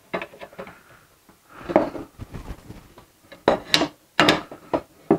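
Aluminium frame and gantry of a laser engraver being handled and shifted on a wooden table: a few separate knocks and clatters of metal parts against each other and the tabletop.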